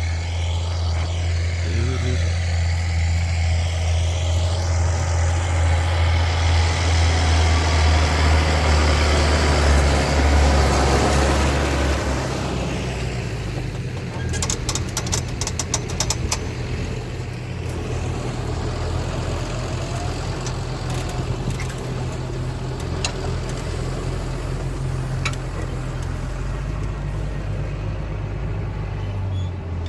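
Large farm tractor diesel engine running steadily, louder for the first twelve seconds or so and then settling lower. A few sharp clicks come around the middle.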